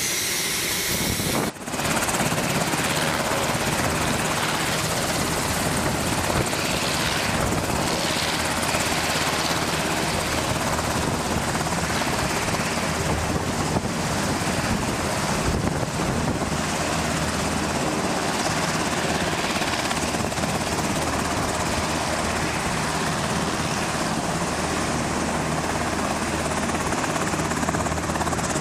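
Coast Guard MH-60 Jayhawk helicopter running, its turbine engines and rotor making a steady loud noise. There is a brief break about a second and a half in.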